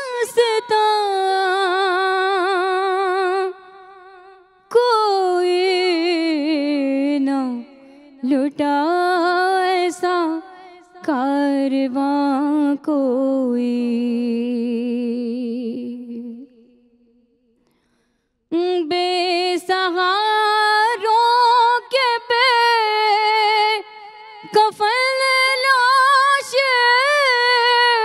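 A woman's solo voice singing a noha, an Urdu lament, unaccompanied into a microphone: long held notes with a wavering vibrato, in phrases, with a pause of about two seconds a little past halfway.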